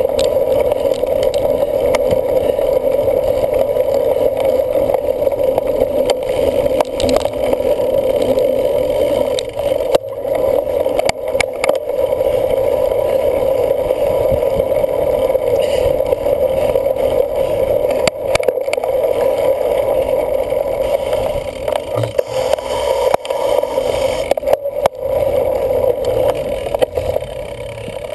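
A bicycle ridden hard over rough ground, heard through a camera riding on the bike: steady wind rush and rolling tyre noise, with scattered knocks and rattles from bumps.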